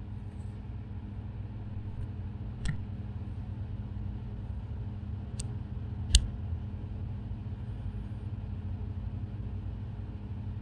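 Steady low background hum with three brief faint clicks, the one about six seconds in the loudest.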